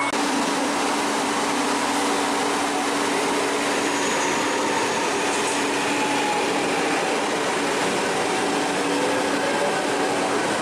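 Alstom Coradia electric multiple unit at a station platform, its equipment giving a steady hum over a wide even rush of noise, with a faint rising whine near the end.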